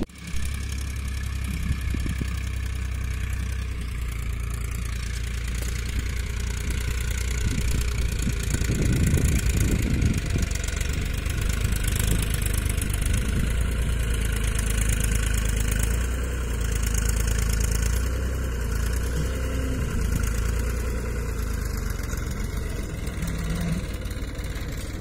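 New Holland tractor's diesel engine running steadily as it drags a rear blade through the soil.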